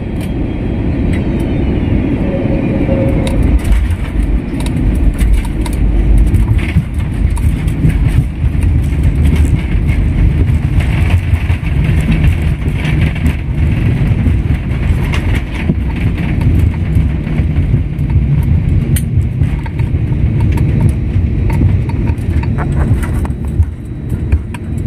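Jet airliner rolling fast along the runway, heard from inside the cabin: a steady, loud rumble of engines and wheels on the tarmac, growing heavier about four seconds in, with small rattles.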